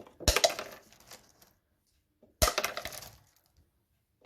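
Dry dog kibble pouring and rattling into a plastic bottle, in two bursts.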